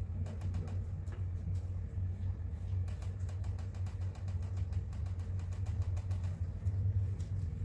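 Steady low hum of a motor or appliance running in the room, with faint light taps of a fan brush dabbing paint onto the painting.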